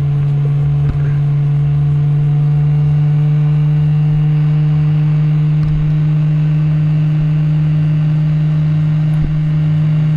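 Heat gun running with a steady, loud hum, blowing hot air to shrink clear heat-shrink tubing.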